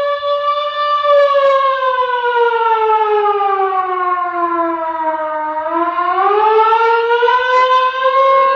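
A single sustained electronic tone. It holds steady for about a second, then glides slowly down in pitch over several seconds and rises back to its starting pitch about seven seconds in.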